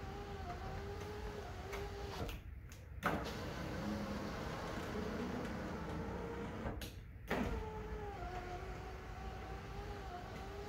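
Universal aftermarket electric window regulator motor driving the glass in a Jeep Wrangler TJ door: a steady motor whine that stops twice, briefly, about two and seven seconds in, each time starting again with a sharp clunk as the glass changes direction, then runs on.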